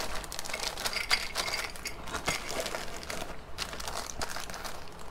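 Plastic bags of model-kit sprues crinkling and rustling, with many small irregular plastic clicks as the parts are handled in a cardboard box.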